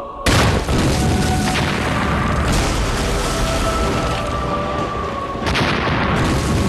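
A loud explosion goes off about a quarter second in, and its rumble carries on under a music score with long held notes. A second blast comes near the end.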